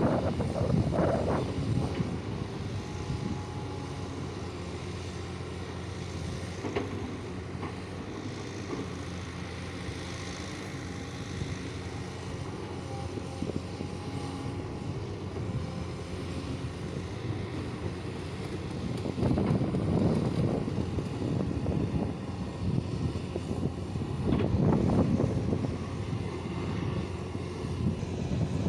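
Excavator diesel engine running steadily, swelling louder just after the start and twice in the second half.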